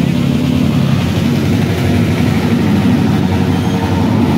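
Motorcycle engines running, a steady loud low engine drone.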